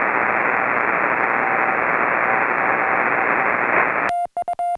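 Receiver audio from an HF transceiver on CW: a steady hiss of band noise with a faint Morse code signal breaking in and out under it. About four seconds in, the hiss cuts out and a clean Morse sidetone beeps in a quick run of short dits as the operator keys his own reply.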